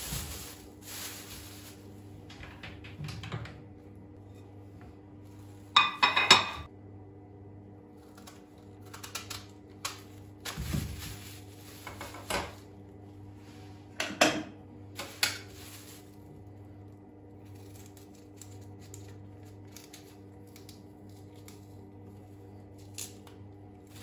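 White ceramic plates clattering as they are set down on a granite countertop, loudest twice, about six and fourteen seconds in. Between them come small knocks and the crinkle of a plastic bag as quinces are handled.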